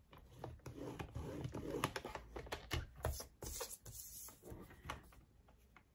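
Scoring head sliding along the rail of a paper trimmer, pressing a score line into designer paper, with the paper shifted and turned over on the board between passes: a run of scraping, clicking and paper-rustling sounds that dies away near the end.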